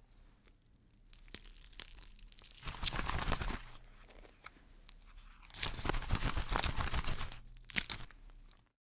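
Dry crackling and tearing of a butterfly's chrysalis case splitting open. One dense burst comes about three seconds in, and a longer one of nearly two seconds comes past the middle, with scattered small crackles between.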